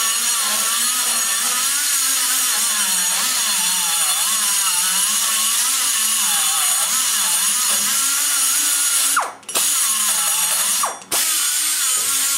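Die grinder with a carbide burr running at speed, cutting into the roof of an aluminum cylinder head's exhaust port, its whine rising and sagging in pitch as the burr bites. It cuts out briefly twice, about nine and eleven seconds in, and spins back up each time.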